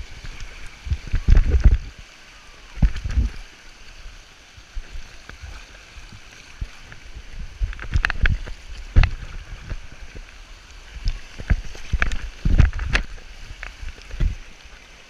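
Creek water rushing and splashing around an inner tube riding a rapid, with irregular heavy low thuds where water and buffeting hit the microphone.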